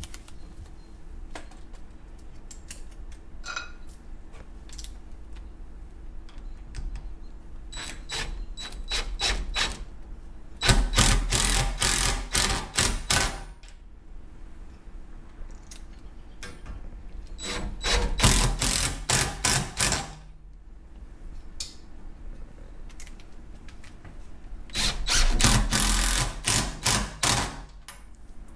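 Cordless DeWalt impact driver hammering bolts through a pipe flange into a wooden post, in three bursts of two to three seconds each, with light clinks of handling between them.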